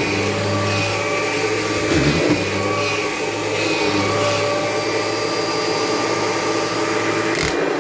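Kirby G5 upright vacuum cleaner running steadily, a low motor hum under a steady whine, with a short sharp knock near the end. It is picking up dirt into an aftermarket Hoover Tempo bag.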